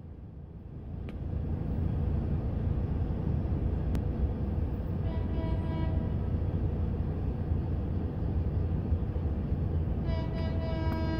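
Rail maintenance train rumbling as it approaches, the rumble building over the first couple of seconds and then holding steady. Its horn sounds a short blast about five seconds in and starts a longer blast near the end.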